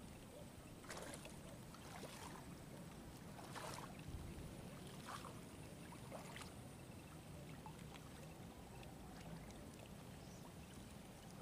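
Faint lapping of small waves, with a handful of soft splashes in the first six seconds over a low steady rumble.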